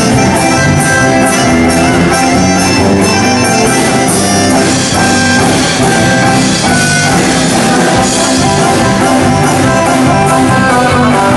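Band music with plucked strings and a drum beat, playing continuously.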